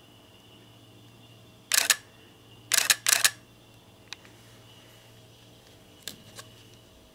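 Clear plastic bag crinkling in three short bursts about two to three seconds in as a kitten moves inside it, followed by a few faint clicks.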